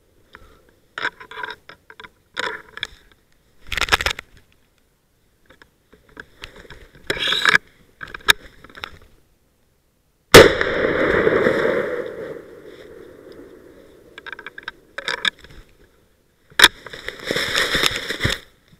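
Hunting gun fired twice at wild boar: the first shot about ten seconds in is very loud and rolls on in a long echo for a few seconds; the second comes about six seconds later, followed by rustling. Before the shots, scattered rustling and crunching in dry leaves.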